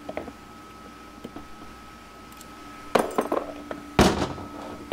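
Hand tools and loose metal transmission parts clinking and knocking during a teardown: a few light clicks, a quick run of clinks about three seconds in, then two heavier knocks near the end.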